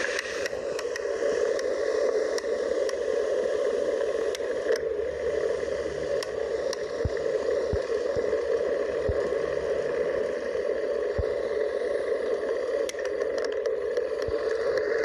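Steady wind and tyre noise picked up by a camera mounted on the handlebar of a moving road bicycle, with scattered small clicks and knocks from the bike over the road surface.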